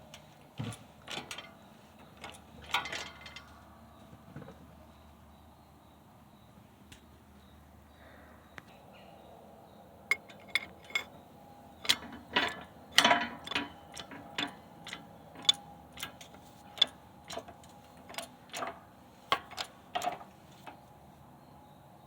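Sharp metal clicks and knocks of tools and sockets being handled against a steel wheel hub while setting up to press in wheel studs. There are a few in the first seconds, a pause, then a quick irregular run of them, some leaving a short metallic ring.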